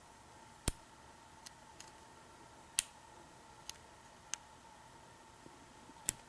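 Sharp, isolated clicks of a lock pick working the pin stack of a Kwikset deadbolt cylinder, about five clear ones spread over several seconds with fainter ticks between. The lock is being single-pin picked while it is hung up, which the picker thinks is on a spool pin in the third chamber.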